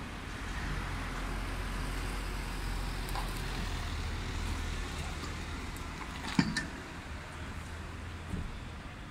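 Convoy vehicles passing close at walking pace: a steady low engine hum with road and tyre noise. A sharp click stands out about six seconds in, with a smaller one near the end.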